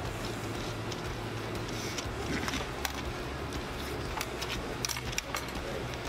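Steady low room hum with scattered short clicks and smacks between about two and five and a half seconds in: the sounds of eating by hand, fingers scraping chili fries off a metal tray and chewing.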